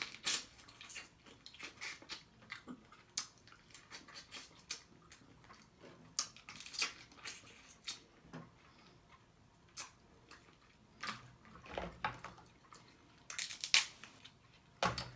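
Close-miked eating sounds: irregular wet lip smacks and chewing clicks, scattered throughout, with a few louder smacks near the end.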